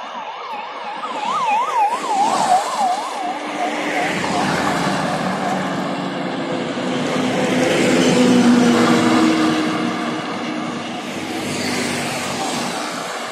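Highway traffic passing close by. For the first five seconds a siren-like warbling tone rises and falls about four times a second and fades out. A small goods truck's engine and tyres then swell past, loudest about eight seconds in, followed by a motorcycle going by near the end.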